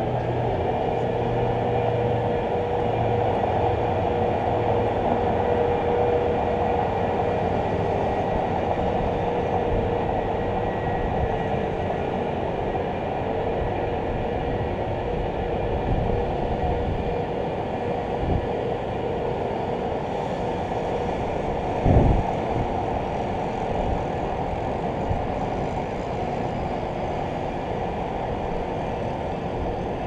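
Steady mechanical rumble of crane machinery running while a lattice jib section is lifted, with a steady hum through the first half. One sharp knock comes about 22 seconds in.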